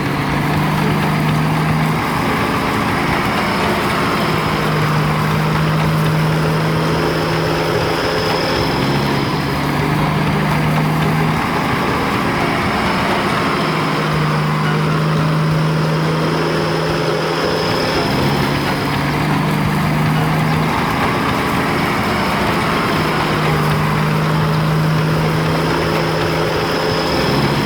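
A vehicle engine running steadily, with a low hum that comes and goes in blocks of a few seconds and a pattern that repeats about every eight seconds.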